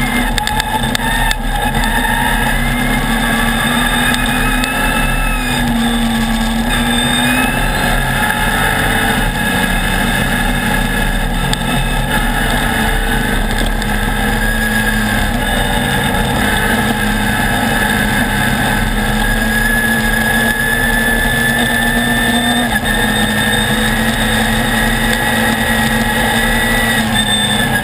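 Off-road race buggy's engine running hard at speed, loud and steady, its pitch rising and dipping as the speed changes.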